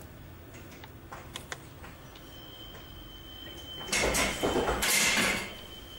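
A signal lever being pulled over in a mechanical signal-box lever frame: a loud rattling clatter of metal about four seconds in, lasting about a second and a half, after a few light clicks.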